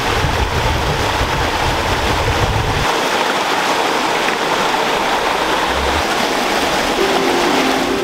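Shallow forest stream rushing over rocks: a steady, loud hiss of flowing water, with a low rumble under it for the first three seconds. Soft music comes in near the end.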